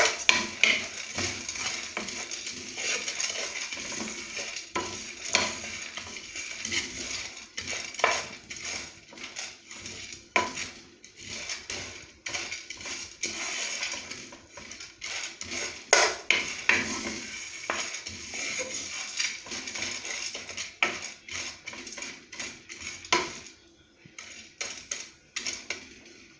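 Sunflower seeds being stirred in a pan while they roast, the utensil scraping and clicking against the pan in an irregular run, over a steady hiss of sizzling from the salted water. It grows quieter near the end.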